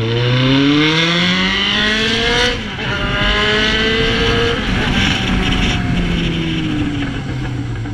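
Yamaha XJ6's inline-four through an Atalla 4-into-1 aftermarket exhaust, accelerating hard. The revs climb, drop at a gear change about two and a half seconds in, climb again, then fall away as the throttle is eased off near the end.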